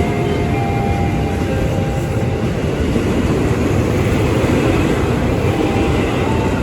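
A train running close by on the rails: a loud, steady noise of wheels and running gear, with a few faint thin tones above it.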